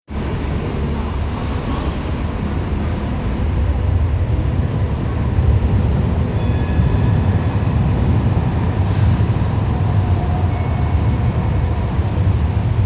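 Hong Kong Light Rail Phase I car standing with its on-board equipment running, a steady low rumble. There is a short hiss about nine seconds in.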